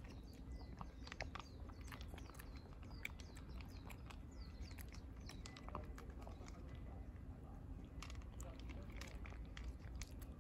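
A cat chewing and licking wet cat food from a plastic bowl: a run of small wet clicks and smacks from its jaws and tongue. Birds chirp faintly in the background through roughly the first half.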